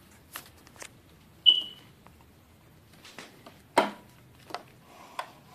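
Light clicks and taps as a hand handles the motorcycle's plastic ram-air duct and fairing, with one short high squeak about one and a half seconds in and a sharper knock near four seconds.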